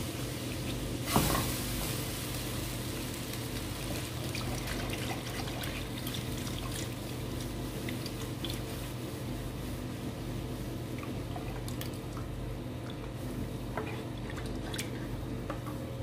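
Milk being poured from a carton into a nonstick pan of flour roux, with a spatula scraping and stirring against the pan in scattered small clicks. A short, loud knock comes about a second in.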